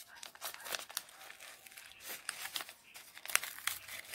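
Stash double spice chai tea packet crinkling as it is handled, a run of irregular sharp crackles.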